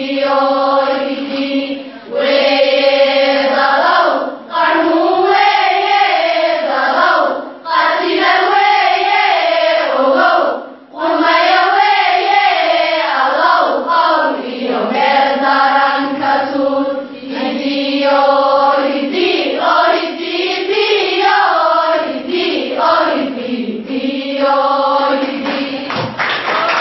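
A large group of schoolgirls chanting together in unison, in short repeated phrases with brief pauses for breath between them.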